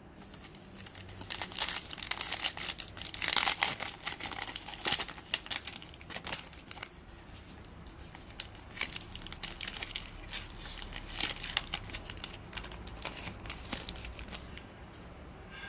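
Shiny foil wrapper of a Panini Revolution basketball card pack being torn open and crinkled: a dense run of tearing and crackling in the first few seconds, then scattered crinkles as the wrapper is peeled off the cards.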